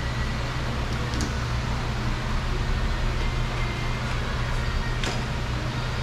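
Steady low hum of shop ventilation, with two faint clicks, about a second in and near the end, as a car door's inner trim panel is worked off the door.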